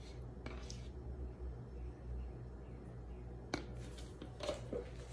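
Yogurt being spooned onto spiced beef in a steel bowl: quiet handling sounds with a few faint clicks and one sharp click about three and a half seconds in, over a low steady hum.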